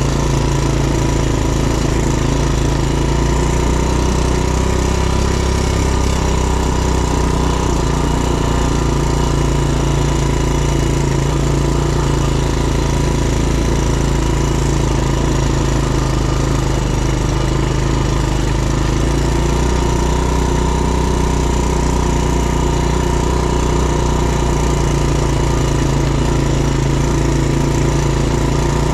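ATV engine running steadily at a near-constant speed for the whole stretch, with only small shifts in pitch.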